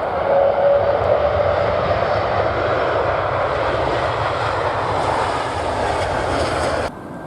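Jet engines of a landing Airbus A330-300 airliner, a steady loud roar that cuts off suddenly near the end.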